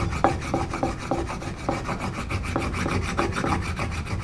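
A stick of polishing compound rubbed in quick back-and-forth strokes, about three or four a second, on a tulip poplar strop paddle, charging the wood to strop a hatchet edge.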